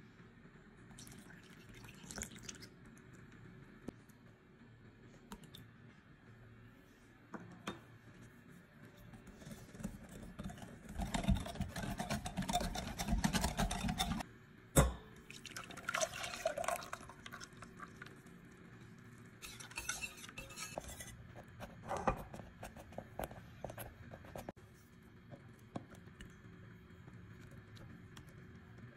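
A wire whisk beating milk and eggs in a glass bowl, loudest for a few seconds around the middle, with liquid pouring and light clinks and knocks of glass and crockery.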